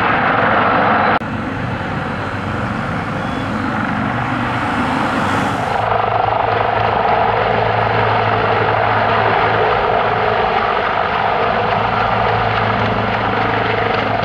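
CH-53E Super Stallion heavy helicopter running, a loud steady rotor and turbine engine noise. The sound changes abruptly about a second in and again around six seconds in, after which a steady low hum dominates.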